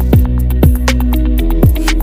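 Electronic music: a steady kick drum about twice a second over a held bass note and sustained synth chords.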